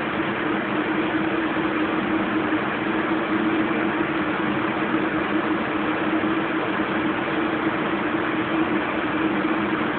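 Kenmore Oasis top-load washing machine spinning at speed in the last minutes of its cycle: a steady whirring drone with a constant hum, unchanging throughout.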